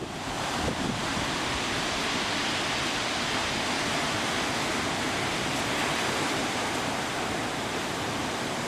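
Steady rushing hiss of sea surf and wind, starting abruptly and holding even throughout.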